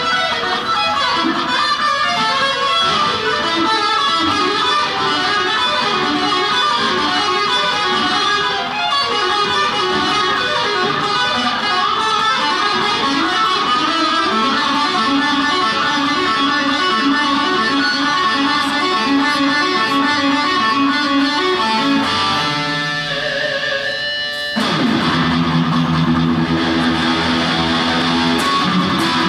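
Solo electric guitar played through a small amplifier: quick runs of single notes, a brief quieter stretch about three-quarters of the way through, then a louder passage of held chords.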